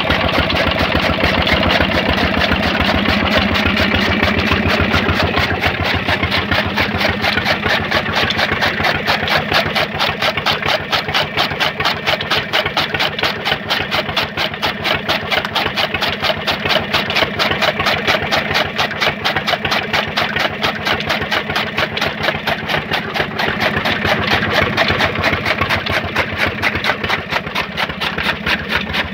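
Small stationary diesel engine running steadily with a rapid, even beat, driving a belt-driven chaff cutter that is chopping green fodder as it is fed in.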